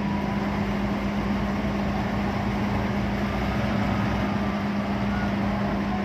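Combine harvester diesel engines running steadily with a constant low drone, one combine towing the other out of deep mud.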